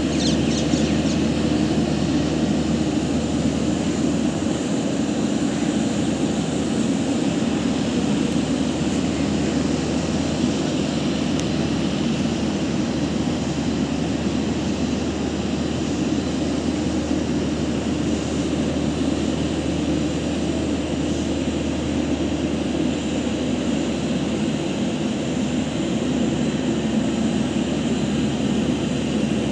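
Narrow-body jet airliner running at idle: a steady engine drone with a high whine.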